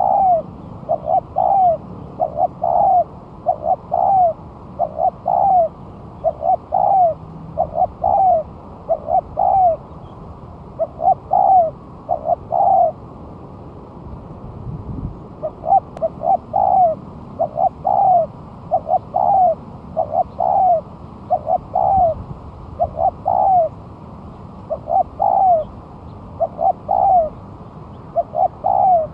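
Spotted dove (tekukur) cooing over and over, short arched coos in runs of two or three with a break of about two seconds midway. Faint chirps of small birds sound behind it.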